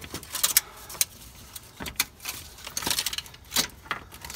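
Irregular clicks, taps and clunks of a brake vacuum pump being worked off the engine, its metal body knocking against brackets and wiring as it comes free.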